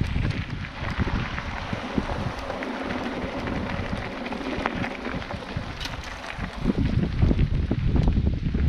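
Wind buffeting the microphone of a riding mountain biker's camera over the crunch of bike tyres on a gravel trail; the wind rumble grows louder in the last two seconds.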